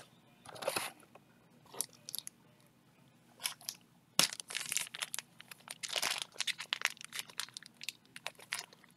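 Crinkling and rustling of plastic card sleeves and packaging being handled, in scattered bursts that turn into a busy run of crackles and clicks about halfway through.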